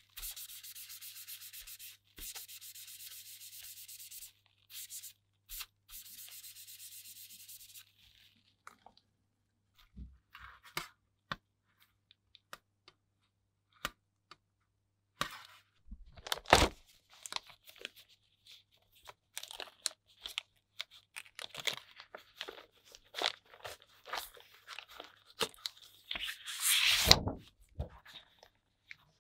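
A spray hisses in several bursts over the first eight seconds while the aluminium sheet is cleaned with acetone. After that comes scattered rubbing, crinkling and clicking as the metal is wiped and handled, with a louder scrape of a paper sheet near the end.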